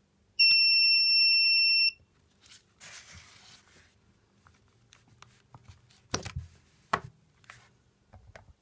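Buzzer of a homemade laser tripwire alarm sounding one steady high beep of about a second and a half, set off by the laser beam to its light sensor being broken. Then rustling and two sharp knocks as the box is handled.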